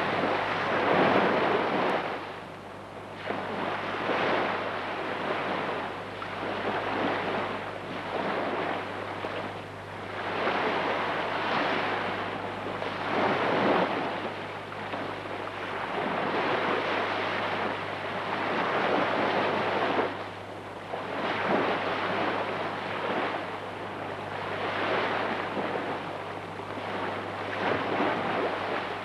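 Sea waves washing in and breaking, the rush swelling and falling back every couple of seconds, over a steady low hum.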